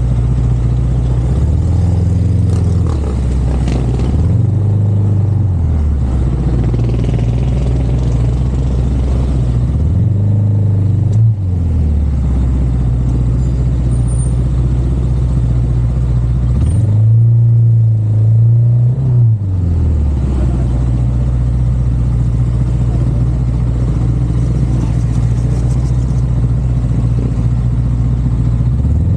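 Motor vehicle engine under way, its low drone rising in pitch and easing back several times as the throttle opens and closes, over steady road noise.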